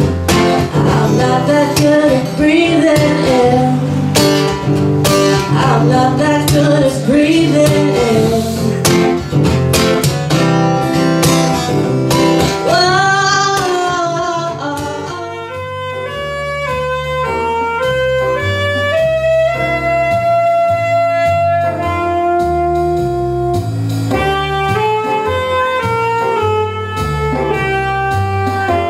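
A woman singing to a strummed acoustic guitar. About halfway through it changes to a saxophone playing slow, held notes over sustained chords.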